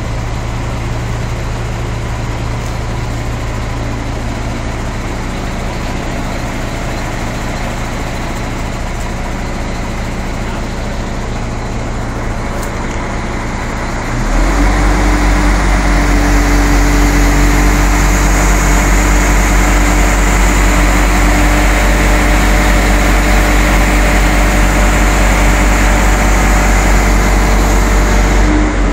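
Heavy truck's diesel engine running steadily. It jumps louder about halfway, with a deep hum and a steady drone above it.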